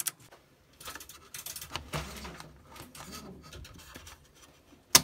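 Scattered clicks and clacks of a train driver's cab controls worked by hand: a rotary selector switch turned and push buttons pressed, with one sharp, loud click near the end.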